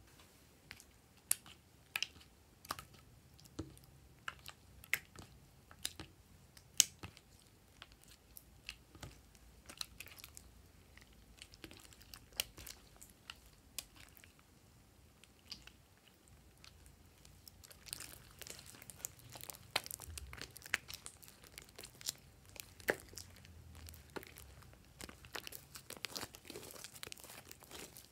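Thick pink slime squeezed, kneaded and stretched by hand, making a run of sticky clicks and small pops, which thicken into a steady crackle about two-thirds of the way through.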